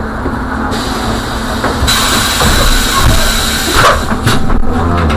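A trolleybus's compressed-air system hissing over the bus's low steady hum: a loud rush of air starts abruptly about two seconds in and cuts off about two seconds later.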